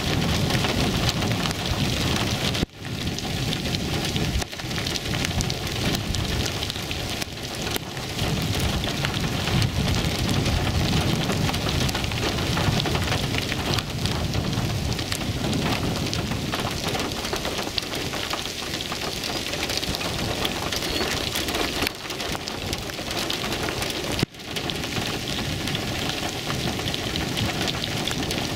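Steady rain with a low rumble underneath during a thunderstorm. The sound cuts out briefly twice, a few seconds in and near the end.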